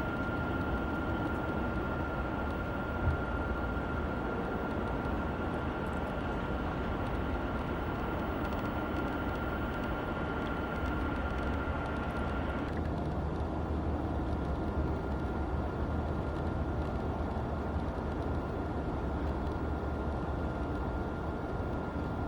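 Steady outdoor background rumble, with a faint steady high-pitched tone that stops about 13 seconds in.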